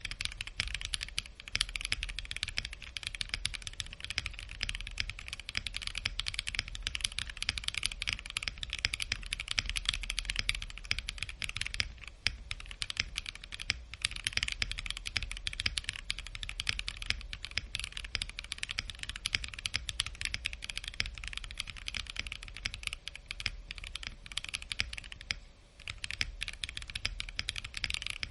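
Continuous typing on a stock Bakeneko65 custom mechanical keyboard with lubed KTT Mint switches, an FR4 plate, an O-ring gasket mount and PBT keycaps: a dense, even stream of key clacks. The clacks pause briefly about twelve seconds in and again around twenty-five seconds.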